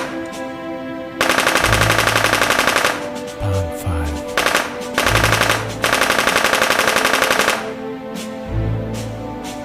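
Rapid automatic rifle fire in two long bursts of about two seconds each, with a short burst between them, over background music.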